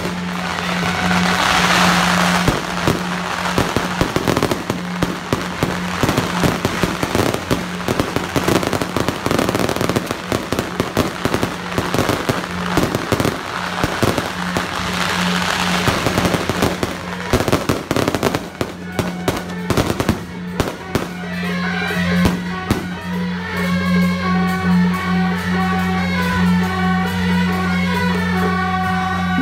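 Aerial fireworks going off: a dense run of crackling bursts and bangs with hissing rising shells, over a steady low hum. About two-thirds of the way through the fireworks thin out and music carrying a melody takes over.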